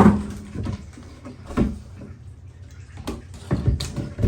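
A series of hollow knocks and thumps, the loudest at the very start and several more later, from floor hatch covers and panels being handled over the boat's tanks.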